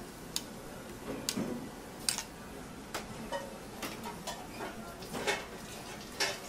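Irregular light clinks and knocks of metal kitchenware and utensils, about ten in all, over a steady low background.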